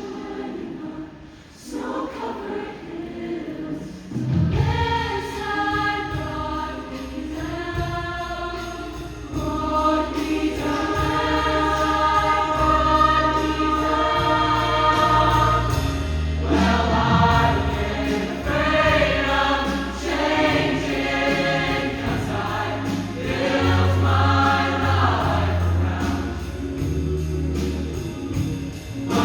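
Show choir singing in harmony over instrumental accompaniment. Sparse at first, then about four seconds in a bass line and fuller backing come in, and the voices swell.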